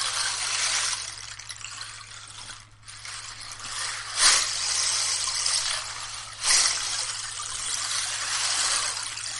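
Handmade egg-shaped rainstick, the Sea Egg, tilted so its fill washes through it in a rushing wave sound like surf over pebbles. It swells and ebbs, with a short lull about three seconds in and sharp surges a little after four seconds and again at six and a half.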